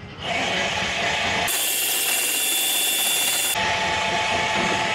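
ADOR2 automatic coop door closing: its electric motor runs steadily as it drives the metal door down its track, starting a moment in. The tone turns hissier for about two seconds in the middle.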